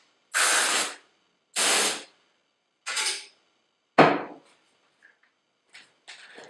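Parts of an IBM IntelliStation POWER 285 workstation being handled during reassembly: four short, loud scraping slides about a second apart, the last starting with a sharp knock, then fainter scrapes near the end.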